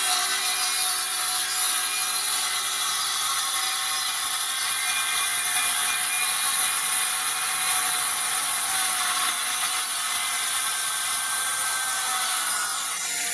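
Power tool cutting into the wood of a subwoofer box, running steadily, with a loud high hiss. It eases off shortly before the end.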